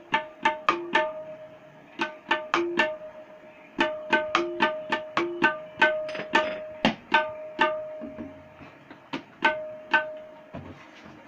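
Tabla played solo: a run of sharp, ringing strokes on the dayan that hold one steady pitch, in short phrases with brief pauses. A few deeper bass strokes on the bayan come in the second half.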